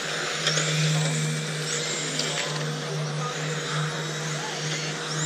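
Electric radio-controlled touring cars racing on an asphalt track: a mix of small-motor whine and tyre noise with faint rising and falling pitches as the cars pass, over a steady low hum.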